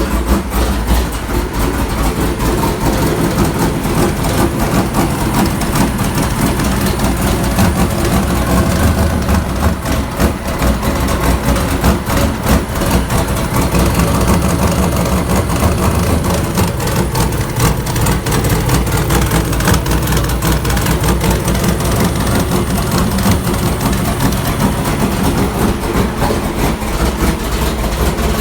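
Turbocharged 6.0-litre LS V8 with a VS Racing 7875 turbo idling roughly. The rough idle comes from idle tuning that the owner finds hard to get right with the Hi-Ram intake manifold.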